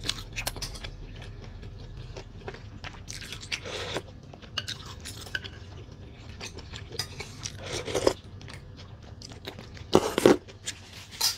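Close-up eating sounds: chewing and biting on pork-bone soup, with a metal spoon clinking and scraping against the soup bowl. There are many small clicks and a few louder bites about four, eight and ten seconds in.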